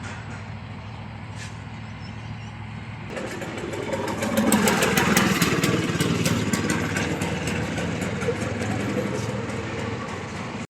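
A motor engine running, low and steady at first, then much louder and rougher from about three seconds in.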